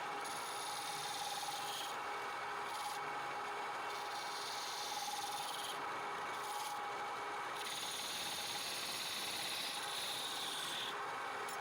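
Wood lathe turning a workpiece while a turning tool scrapes across the spinning wood, over a steady motor hum. The scraping swells and eases every second or two as the tool moves.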